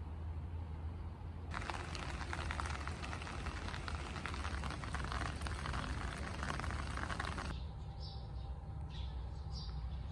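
Outdoor garden ambience with a steady low rumble. From about a second and a half in, a crackly hiss takes over. It gives way suddenly, about three-quarters of the way through, to a quieter stretch with a few short, high bird chirps.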